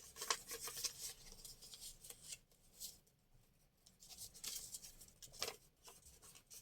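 Faint, scattered clicks and rustles of paper and craft tools being handled.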